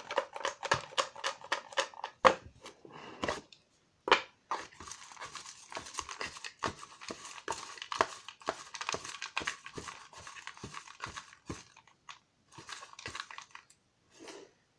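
Folded paper slips rustling and crinkling as a hand rummages through them in a pink paper box, with many small irregular crackles and taps.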